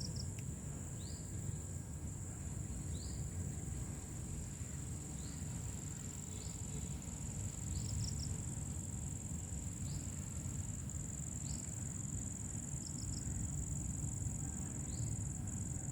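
Crickets trilling steadily in a continuous high-pitched drone. Over it a bird gives short rising chirps every second or two, with a few quick stuttered note groups. A low rumble runs underneath.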